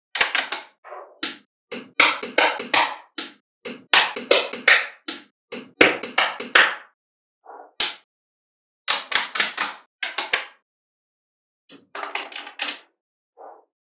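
Small neodymium magnetic balls clicking and snapping together in quick clusters of sharp clicks, with short gaps between, as they are set into place; a softer scraping rattle near the end.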